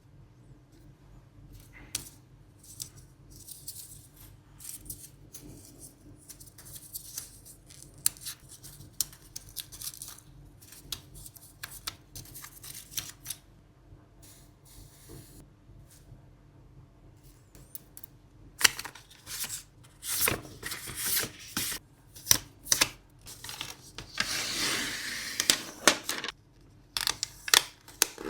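Hands handling product packaging during an unboxing: scattered light taps, clicks and scratches on cardboard, then louder, busier rustling and crinkling of packing material in the last third, with one longer stretch of rustling near the end.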